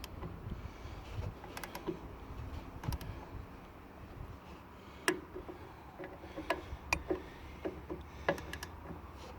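Scattered light clicks and knocks, about a dozen at irregular intervals, over a low steady rumble.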